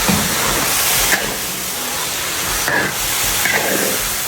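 Steady sizzling hiss of long beans braising in soy sauce in a large pot, with no added water, and a few short knocks.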